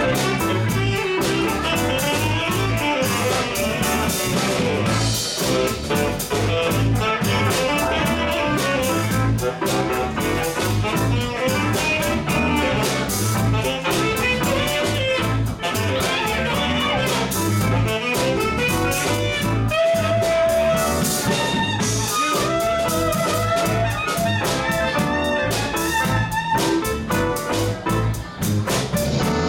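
Live band playing an upbeat groove on electric guitars, electric bass and a Korg Karma keyboard, with a steady, repeating bass pulse under busy guitar and keyboard lines.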